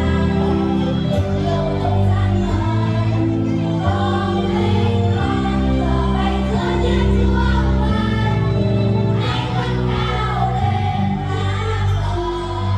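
A group singing a song with instrumental accompaniment and a steady bass.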